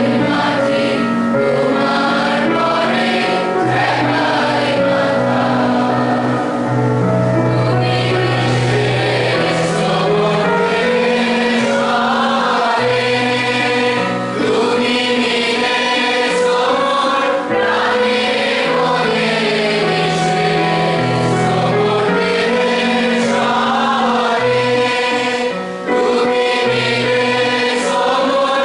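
A large group of schoolchildren, boys and girls together, singing a song in chorus with long held notes.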